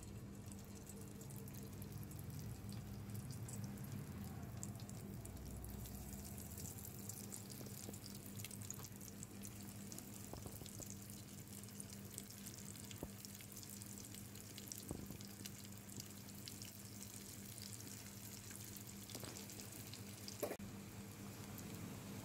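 Cornflake-crumbed chicken pieces deep-frying in hot oil in a steel pan: a faint, steady sizzle with fine crackling.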